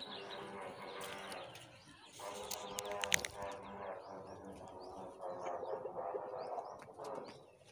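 Goats bleating: three long, drawn-out bleats a second or so apart, with small birds chirping in the background.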